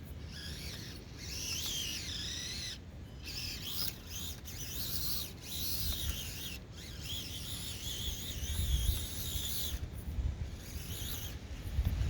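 Small electric motor and gears of a 1/24-scale Axial SCX24 RC crawler whining as it drives through mud, the high whine rising and falling with the throttle and stopping briefly a few times.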